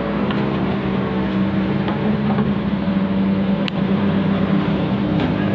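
Engine running steadily with a constant pitched drone.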